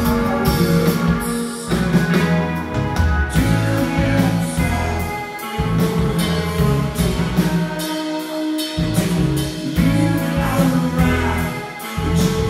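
Live indie rock band playing a song: drum kit, guitars and singing.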